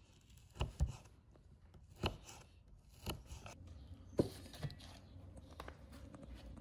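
A few separate knocks and clicks of a knife cutting against a wooden chopping board, then a metal tray set down on a cloth-covered table.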